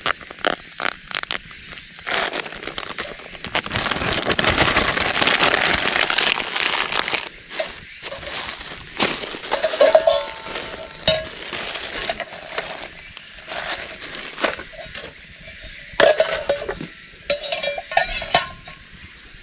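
Plastic food packet crinkling and rustling as it is torn open and handled, followed by a few metallic clinks of stainless steel cups and cookware being set down, some with a short ring.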